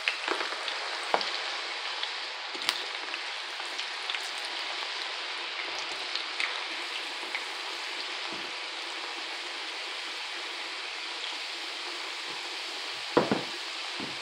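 Raw potato sticks deep-frying in a pan of hot oil: a steady sizzle with scattered crackles and pops. A short thump about 13 seconds in.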